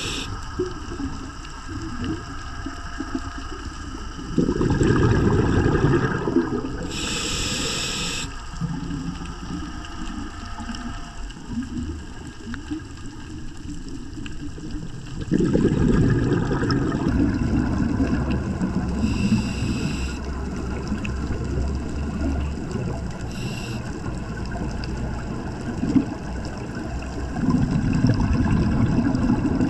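Underwater scuba breathing through a regulator: three loud rumbles of exhaled bubbles, each followed a second or two later by a short hiss of inhalation, over a steady underwater hiss.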